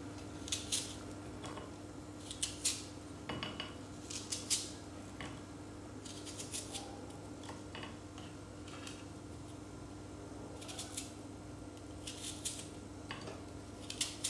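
Kitchen knife slicing crisp, white-fleshed fruit held in the hand over a plate: short crunchy cuts come singly or in quick pairs every second or two. A steady low hum sits underneath.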